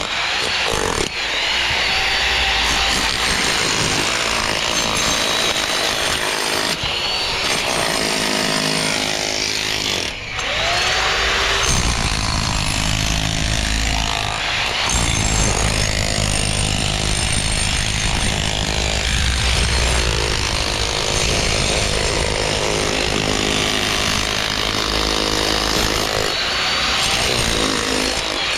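A power tool running continuously while cutting, its motor pitch sagging and recovering as the load changes, with a brief let-off about ten seconds in.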